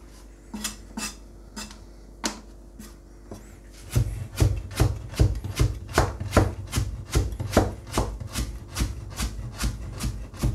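Kasumi nakiri knife chopping carrot into thin julienne strips against a cutting board. A few separate knocks come first, then from about four seconds in a steady run of quick chops, about four a second.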